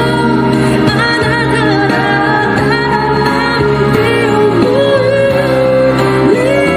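A woman singing a song into a handheld microphone, amplified over instrumental accompaniment, with a few long held notes.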